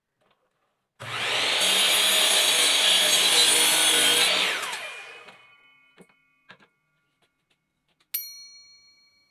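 Bosch compound miter saw starting up and cutting through a pine 1x4 at a 45-degree angle, the motor running for about three seconds, then released and spinning down with a falling whine while the blade rings faintly. A few light knocks follow, and near the end a sharp clack with a short metallic ring.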